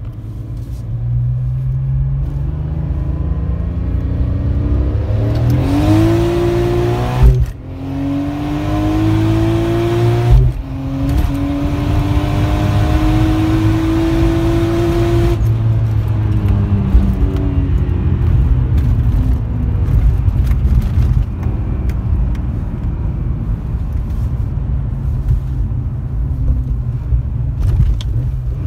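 Turbocharged BMW E46 M3 S54 straight-six accelerating hard through the gears: the engine pitch climbs in three pulls with two brief breaks at the upshifts, starting about five seconds in. About halfway through it eases off and runs on at a lower, steady pitch.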